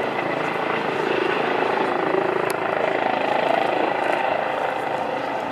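Military helicopter hovering, with a steady sound of rotor and turbine. A brief click about two and a half seconds in.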